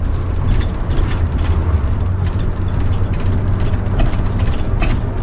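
Converted-bus motorhome on the move, heard inside the cab: a steady low engine and road drone with frequent rattles and clicks from loose fittings in the cabin.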